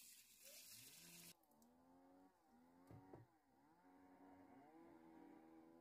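A faint small engine running, its pitch dipping and rising again several times, after a short burst of hiss at the start.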